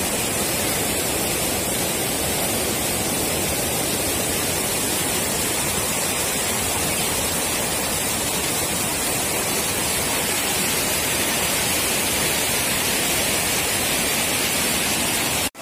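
Floodwater pouring over a river dam's weir crest: steady, loud rushing of churning, foaming white water, breaking off abruptly at the very end.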